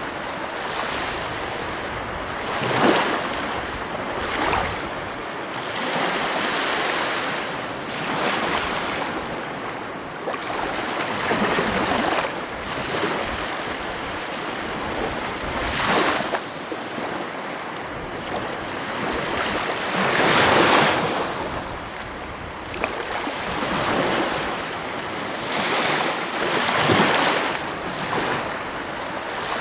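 Heavy ocean surf breaking on the coast: a continuous rush of water that swells louder as each wave crashes, about every four to six seconds, loudest about 20 seconds in.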